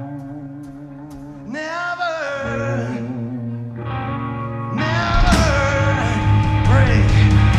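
Live rock band with singing and guitar: a quieter passage with sustained, bending vocal notes, then the full band comes back in loud about five seconds in, with drums and cymbals.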